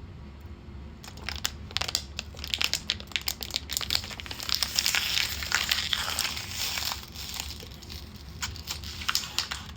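Plastic water bottle crinkling and crackling as it is squeezed while cold water is drunk from it, starting about a second in and going on in dense irregular crackles.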